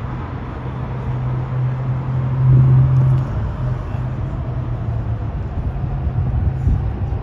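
Road traffic: a steady low engine hum that grows louder about two and a half seconds in, then eases.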